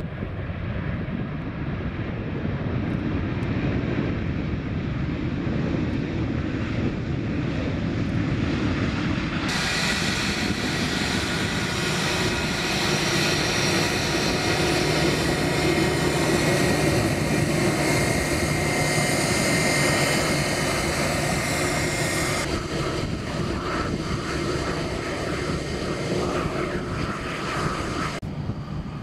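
Airbus A320 jet engines at low thrust as the airliner rolls and taxis: a steady rumble, joined about ten seconds in by a high engine whine with a slight rise and fall in pitch, which drops away abruptly later on.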